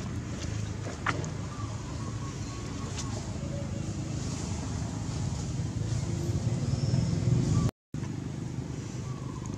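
Low rumble of a passing motor vehicle's engine, growing louder until about seven and a half seconds in. The sound then cuts out completely for a moment, and the rumble comes back quieter.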